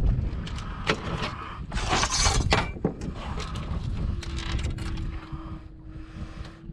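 Handling noise as a redfish is held on a fibreglass boat deck with a lip-grip tool and a measuring tape laid alongside it: clicks and rattles, a longer scraping rush about two seconds in, then a faint steady hum from about four seconds in, over low wind rumble on the microphone.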